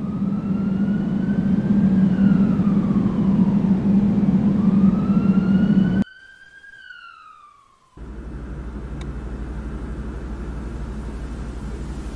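Emergency vehicle siren wailing in slow rising and falling sweeps over a loud low rumble, cutting off suddenly about six seconds in. After a much quieter gap of about two seconds, a steady low hum sets in, with a single faint click about a second later.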